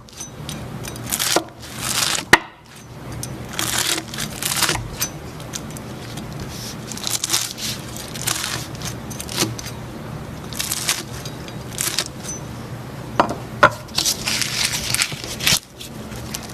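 Hands squishing and pressing slime, making repeated crackling, squelching noises with a few sharp clicks.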